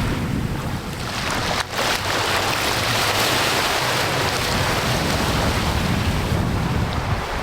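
Surf breaking on a beach, a steady rush of waves, with wind buffeting the microphone.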